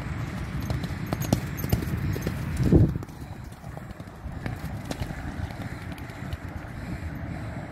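Hoofbeats of a bay horse and a pinto foal cantering on soft sand: a quick, uneven run of dull thuds, with one loud thump about three seconds in, after which the hoofbeats are quieter and sparser.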